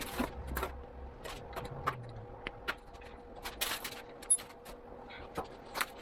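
Irregular light clicks, knocks and rattles of bicycle parts being handled while the front wheel is fitted, with a denser rattle a little past halfway, over a faint steady hum.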